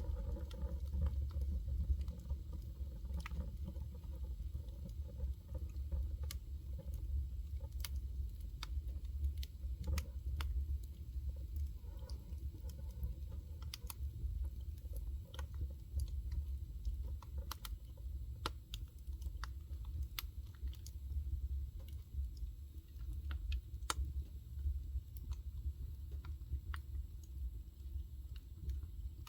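Fire crackling: irregular sharp pops and snaps over a low, steady rumble.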